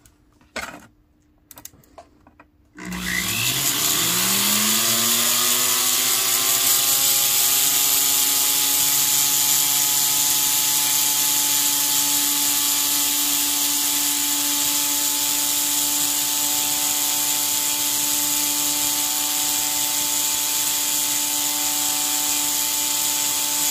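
After a few small clicks, a jeweller's flex shaft rotary tool starts about three seconds in, spinning up in a rising whine to a steady high speed. Its tiny burr is grinding out the inlay channel of a 14-karat gold ring.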